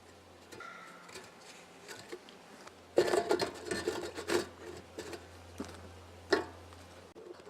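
Wooden beehive parts being scraped and knocked as the hive is worked, with a cluster of loud scrapes and knocks about three seconds in and a single sharp knock near the end.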